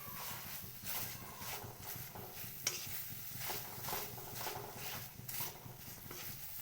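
A spoon stirring and scraping crumbled paneer around a hot kadhai in repeated strokes, about three a second, over a light sizzle as the paneer's water cooks off; one sharp click of the spoon on the pan a little under three seconds in.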